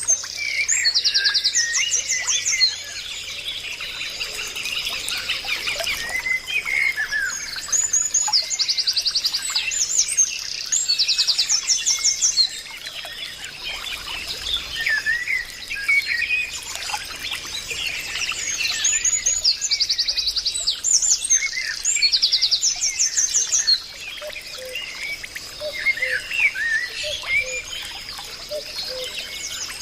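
Several birds calling and singing at once: fast, high trills repeated every few seconds and scattered chirps, over a steady high hum.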